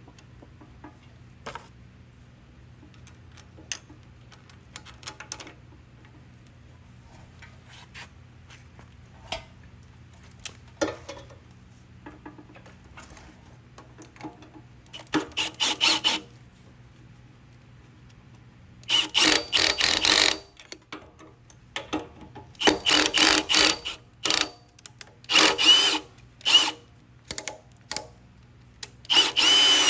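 Hand tools working the carburetor mounting bolts on a Briggs & Stratton small engine: scattered small clicks and taps, then several short bursts of rapid clicking in the second half, typical of a wrench being worked to run the bolts down.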